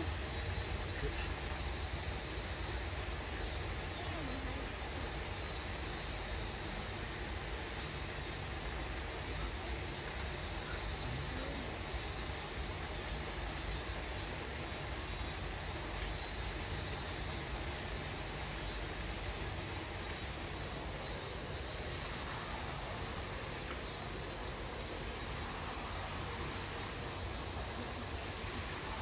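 Outdoor ambience of insects chirping in short clusters of rapid pulses that recur every second or two, over a steady low rumble.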